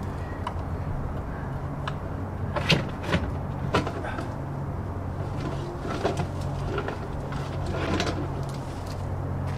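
Plastic clicks and knocks of a pond filter's lid being opened and handled: a handful of sharp knocks spread over several seconds, over a steady low hum.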